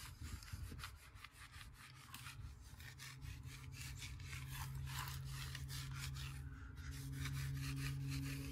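Microfiber towel rubbing hazed wax off a boat's metal-flake finish in quick, repeated wiping strokes. A low steady hum comes in about three seconds in.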